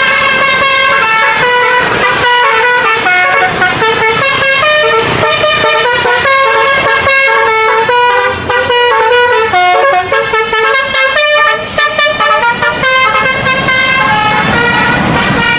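Indonesian bus 'telolet' basuri horn, a multi-trumpet air horn, playing a melody. Its notes step up and down every fraction of a second with hardly a break.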